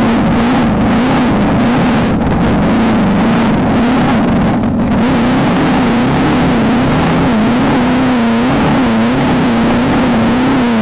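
Off-road desert race car engine running hard and continuously, its pitch wavering up and down every second or so with the throttle, over a steady rushing noise.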